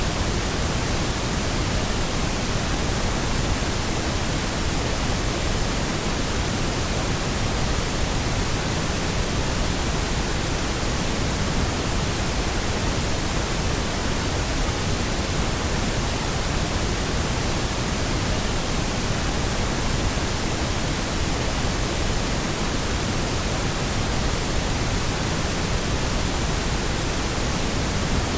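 Steady, unchanging pink noise: an even hiss spread across all pitches, with no tones or breaks.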